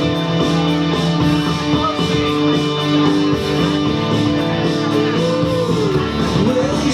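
Music with guitar playing over a steady beat.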